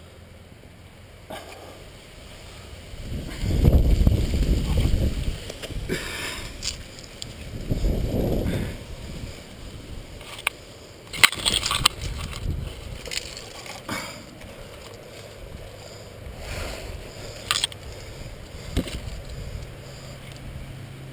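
A climber's hands and shoes scuffing and scraping on rock, with loud low rumbles of contact on the microphone about four and eight seconds in, and leaves and branches crackling close up about eleven to twelve seconds in.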